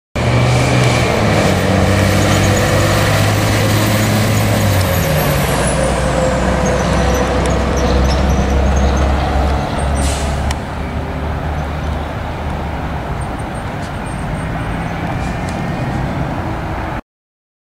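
Diesel engine of a tri-axle roll-off truck running as it drives by, its low note dropping about five seconds in as it slows. A short hiss comes about ten seconds in, against passing road traffic.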